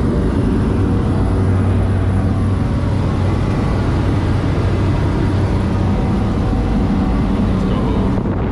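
Steady engine drone from inside a moving vehicle: an even roar with an unchanging low hum and its overtones.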